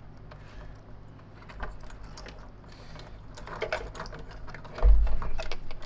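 Small clicks and rattles of wires and plastic connectors being handled inside a vacuum cleaner's housing, growing busier in the second half, with one dull low thump about five seconds in.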